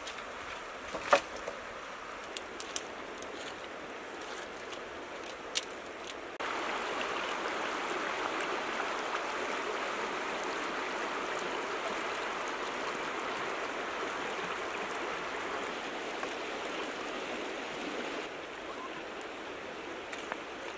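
Shallow river running over a stony bed, a steady rushing. In the first few seconds there are a few sharp clicks of pebbles knocking underfoot. About a third of the way in the rushing steps up suddenly to a louder level and eases back down near the end.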